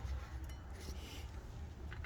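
A few faint metallic clicks as new rear brake pads are slid into the caliper bracket, over a low steady rumble.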